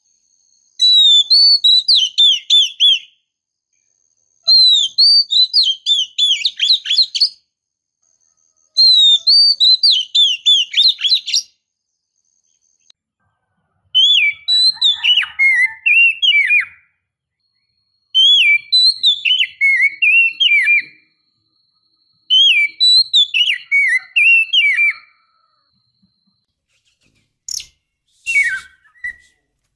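Oriental magpie-robin (kacer) singing: six loud phrases of quick whistled notes sliding downward, each two to three seconds long with silent gaps between them, then a few short sharp notes near the end. Offered as a female's breeding call to a male.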